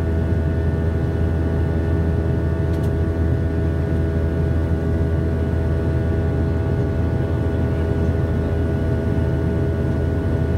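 MD-90's rear-mounted IAE V2525-D5 turbofan at climb power, heard inside the cabin right beside the engine: a steady deep drone with a buzz of several unchanging tones on top.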